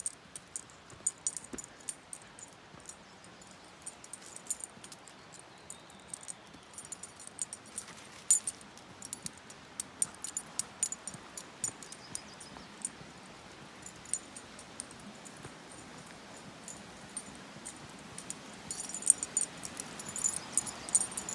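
Metal dog collar tags jingling in quick, irregular clinks as the dogs walk, over a faint steady hiss. The jingling gets thicker and louder near the end.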